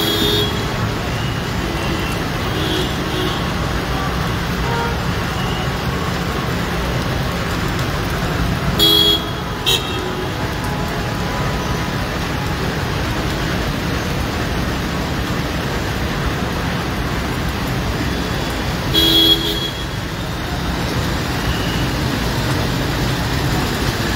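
Steady hiss of rain and wet street traffic, with vehicle horns honking in short blasts, loudest about a third of the way in and again near three-quarters through.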